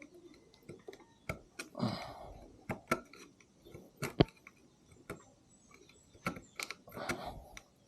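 Small metal parts clicking and scraping by hand: a metal ring lock and a flathead screwdriver being worked against the mount. There are irregular sharp clicks, the loudest about four seconds in, and two short scraping passes around two and seven seconds.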